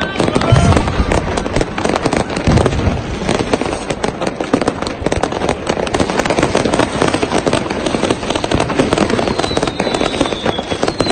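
Dense fireworks: continuous rapid crackling and popping of firecrackers and bursting rockets, with deep booms about half a second in and again at about two and a half seconds.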